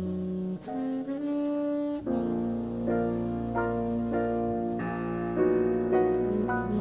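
Jazz LP playing on a turntable: a saxophone melody of held, changing notes over piano accompaniment, with fuller low notes coming in about two seconds in.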